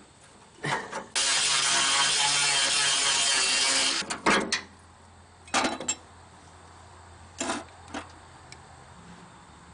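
A hand-held power tool's motor runs for about three seconds and stops abruptly, followed by a few sharp metal clanks of hand tools against the tractor's steel grille and headlight bracket.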